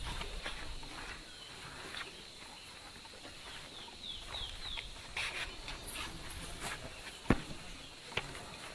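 A bird gives four short, quick falling chirps about four seconds in, over faint outdoor background noise. A single sharp knock about seven seconds in is the loudest sound.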